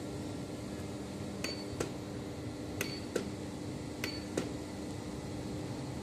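Push-buttons on an SMG-3002 remote-control copy machine pressed three times, each press giving a click with a short high beep, followed by a second click about a third of a second later. A steady low hum runs underneath.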